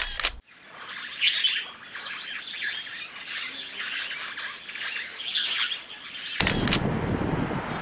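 Small birds chirping in short spells, one after another. About six and a half seconds in there is a click, and a louder, low rushing noise takes over.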